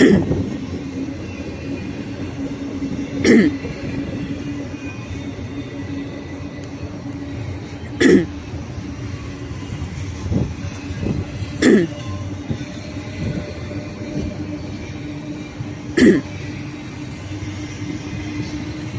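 BNSF intermodal freight train cars rolling past, a steady rumbling hum broken by a sharp clack every three to five seconds.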